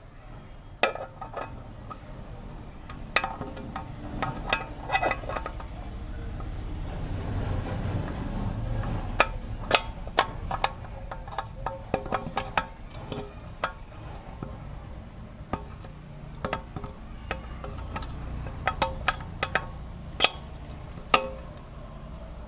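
Metal tools and parts clinking and knocking at irregular intervals. A low rumble swells and fades around the middle.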